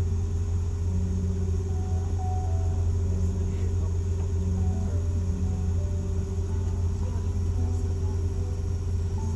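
Steady low hum of a parked Boeing 717's cabin air-conditioning, with a constant higher tone over it and faint passenger voices murmuring in the background.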